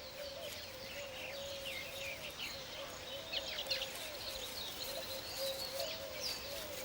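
Weaver birds chattering at the nesting colony: many quick, high chirps and flicked notes over a low, wavering, continuous warble.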